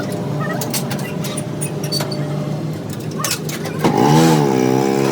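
A motor running steadily, with scattered clicks and knocks over it. About four seconds in, a louder pitched sound joins, wavering up and down in pitch.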